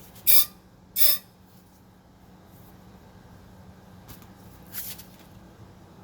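Two short, loud, ringing metal clinks in quick succession, then a fainter high scrape near the end: tools and brake parts being handled while a car's rear brake is taken apart.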